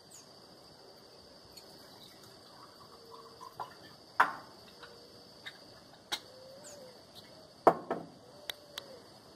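Scattered knocks and clinks of kitchen things being handled on a wooden table, the loudest about four seconds in and again near eight seconds, over a steady high insect drone and a few faint low rising-and-falling bird calls.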